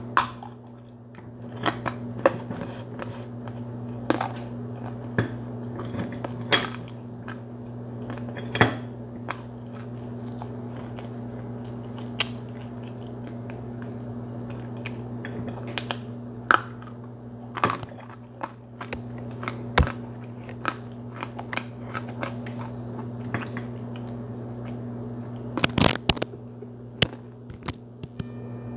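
Smoked Liberian clay being bitten and chewed close to the microphone: irregular, sharp, dry crunches, some loud, over a steady low hum.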